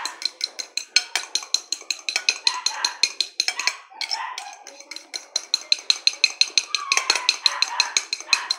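A fork beating egg yolk into stiffly whipped egg whites in a glass bowl, its tines clinking against the glass in rapid, even strokes, about five or six a second.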